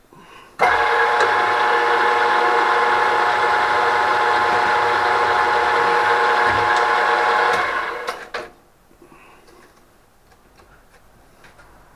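A geared machine-tool spindle running steadily with a whine of many steady tones for about seven seconds, starting under a second in and winding down near the eight-second mark. It is most likely the drill spindle turning for the locking-pin hole.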